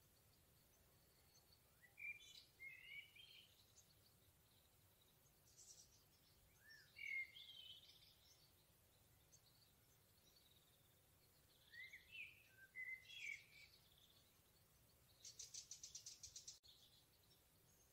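Faint forest songbirds singing: three short warbling phrases several seconds apart, then a fast trill of rapid repeated notes near the end.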